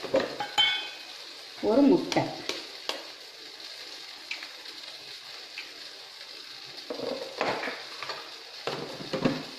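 A spoon clinking and scraping in a small steel bowl of flour, then a few sharp taps as an egg is cracked on the bowl and broken open into it, over a steady background hiss.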